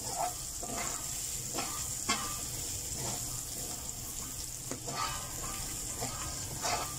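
Diced hotdogs and mixed vegetables sizzling steadily in a hot stainless-steel wok, stirred with a wooden spatula that scrapes against the pan in short strokes every second or so.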